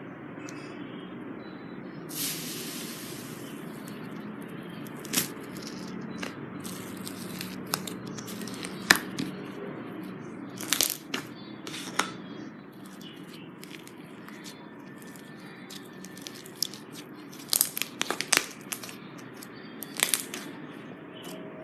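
Slime being handled, with scattered sharp pops and crackles, more of them near the end, over a steady low background. A short hissy rustle comes about two seconds in.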